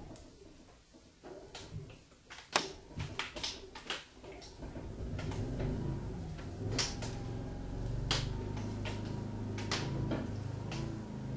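A few scattered clicks and knocks, then about four and a half seconds in a generator engine starts and runs steadily with a low hum, heard from inside the building.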